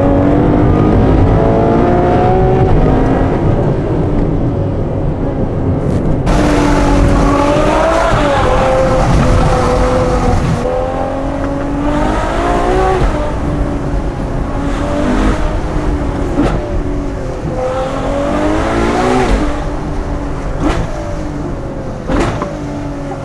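Ferrari 812 Superfast's 6.5-litre V12 heard from inside the cabin while driving, the revs climbing and dropping several times as it pulls through the gears.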